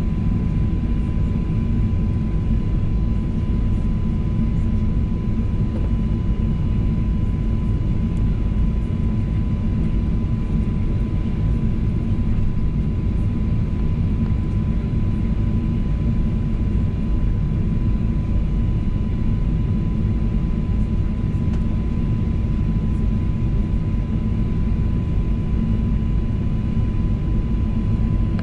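Steady low rumble of a Boeing 737-900ER's CFM56 turbofan engines heard inside the passenger cabin, with a thin steady whine above it.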